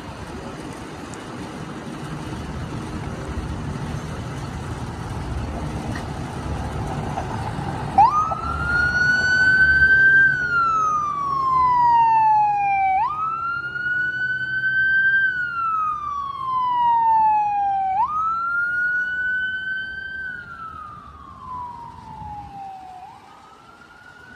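Traffic and engine rumble, then a Dodge fire-rescue ambulance's electronic siren starts about a third of the way in on a wail. Each cycle rises quickly and falls slowly, repeating about every five seconds, and it grows fainter near the end as the ambulance moves off.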